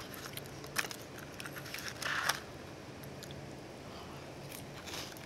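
Light clicks of a wooden stick against a paper milk carton as a baked milk-ring snack is dipped in the milk and lifted out. There is a brief rustling crunch about two seconds in, over a faint steady hum.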